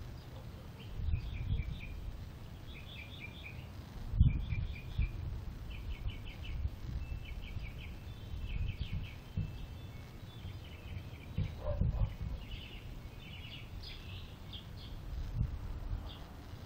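A small bird chirping: quick runs of short, high notes repeated every second or so. Beneath them an uneven low rumble, with louder bumps about four and twelve seconds in.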